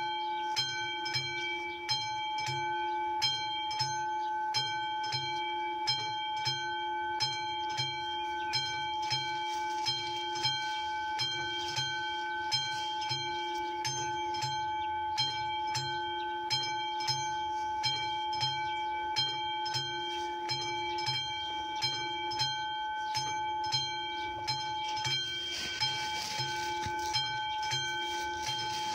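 Level-crossing warning bell of an AŽD 71 signal, a classic mechanical bell, ringing with fast, even strikes and a steady ringing tone between them, starting suddenly as the crossing is activated for an approaching train.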